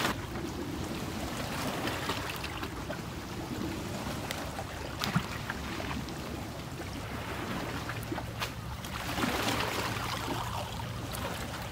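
Steady rush of wind and flowing river water at the bank, with a few faint clicks and one brief sharp sound about five seconds in.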